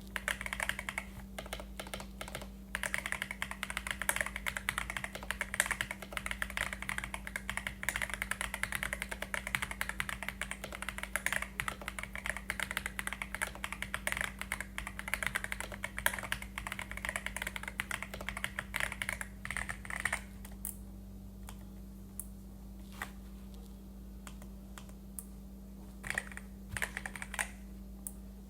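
Typing on an Aula F98 Pro mechanical keyboard with XVX keycaps and a dull mod: a fast, dense run of keystrokes that thins after about twenty seconds to scattered single key presses, with a couple of short bursts near the end.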